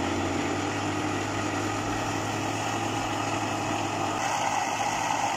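Countertop electric blender running steadily at full speed, churning a thick, cooled strawberry custard mixture to make it smooth. The tone shifts slightly about four seconds in.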